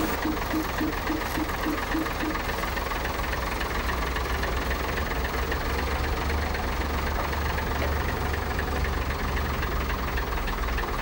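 Heavy truck engine idling steadily, a low even running beat.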